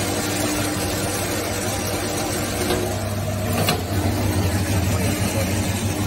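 V-C3 scrap copper wire stripping machine running with a steady electric-motor hum while a thin wire is fed between its bladed rollers to be stripped. A couple of short clicks come near the middle.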